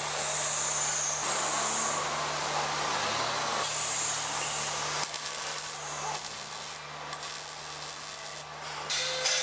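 A steady hiss with a low hum, then from about halfway in the irregular crackle of a MIG/MAG welding arc laying a bead on a 3-inch pipe joint, getting stronger near the end.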